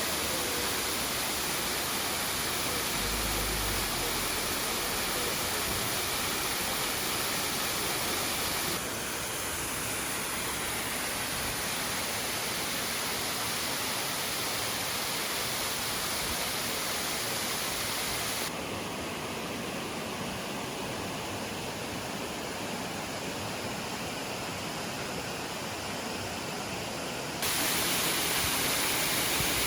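Bigăr Waterfall's water rushing in a steady, even hiss. The sound changes abruptly in brightness three times, about 9, 18 and 27 seconds in.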